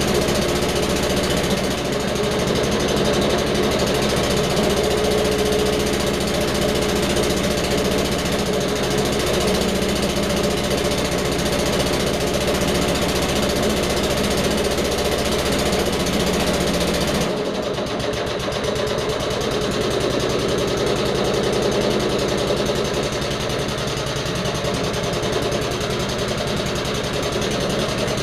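Petrol engine of an old Suffolk Punch 43S lawnmower running steadily after being got going. About two-thirds of the way through the sound changes abruptly, then the engine runs on.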